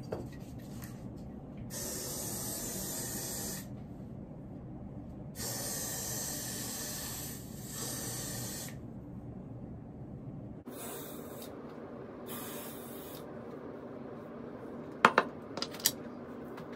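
Aerosol hairspray (Got2b Glued Blasting Freeze Spray) hissing out of the can in four bursts: one of about two seconds, a longer one of about three and a half seconds, then two short puffs. It is being sprayed to set a swooped bang stiff. Near the end come a few sharp knocks.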